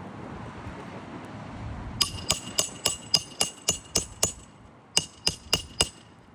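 Hammer blows ringing on a steel shingle-removal tool, about nine quick strikes starting two seconds in, then a short pause and four more. The tool is being driven under an asphalt roof shingle to break its seal.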